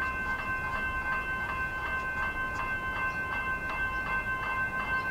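Level crossing warning bells ringing in a steady, even rhythm as a Comeng electric train approaches, with the train's low rumble underneath.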